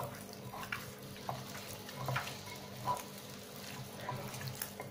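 Raw chicken wing pieces being stirred and squeezed by hand in a bowl, giving soft, irregular wet squelches.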